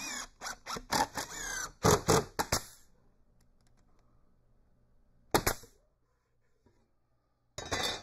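Cordless drill boring pilot holes through the box-joint fingers of a pine hive body, run in a string of short bursts with a rising whine. About five seconds in comes one sharp knock, and a short burst of noise near the end.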